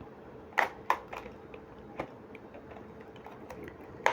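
A few sharp plastic clicks and knocks of an HP 150 wired keyboard being handled while it is unpacked, two loud ones close together about half a second in and another at the end.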